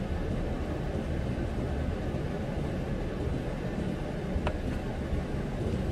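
Steady low rumbling background noise with one short click about four and a half seconds in.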